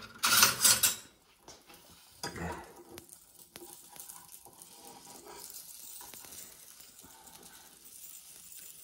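Egg omelette frying in a pan on a gas burner, a steady soft sizzle as a spatula works it. Near the start, a brief loud rattle of metal utensils in a kitchen drawer.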